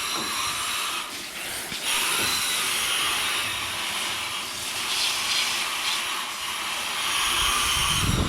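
Water from a garden hose spraying steadily against the fins of an air-conditioner condenser coil to rinse it clean, a continuous hiss that gets a little louder about two seconds in.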